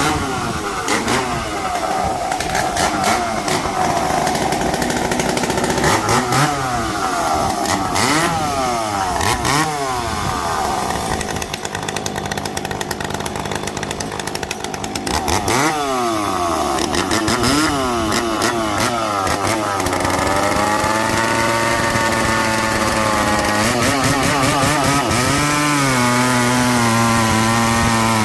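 Vintage two-stroke chainsaw running hard, revved up and down over and over, then held at a steady high speed for the last part, dipping once and climbing again near the end.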